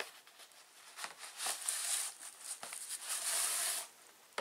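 Cardboard box and plastic packaging rustling and scraping as the contents are pulled out. There are a few sharp clicks, then two longer crinkling stretches, with a sheet of bubble wrap coming out near the end.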